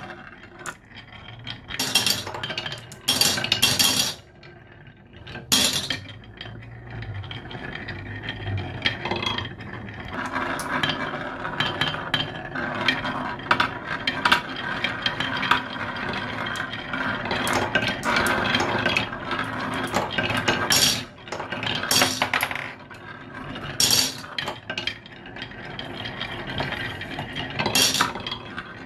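Glass marbles rolling down the zigzag grooves of a wooden HABA slope marble run, clinking against each other and knocking on the wooden curves. Sharp clinks come in the first few seconds and again near the end, with a steadier rolling sound in between.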